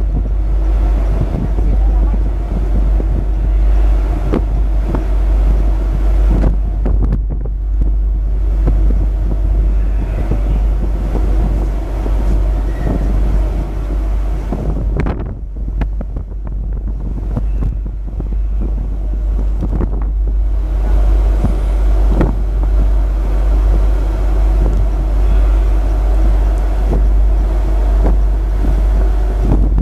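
Wind buffeting the microphone on a ferry's open deck, over the steady rumble of the ship's engines.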